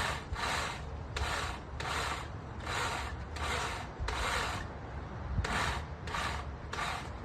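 Hand saw cutting through a tree branch: about a dozen rhythmic back-and-forth strokes of the blade rasping through the wood, with a brief pause about five seconds in.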